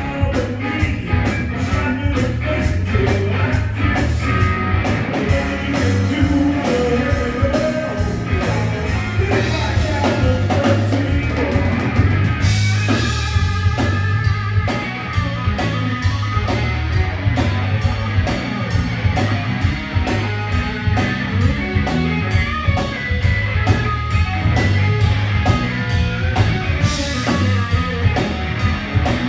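Live blues-rock trio playing: electric guitar over electric bass, with a drum kit keeping a steady beat.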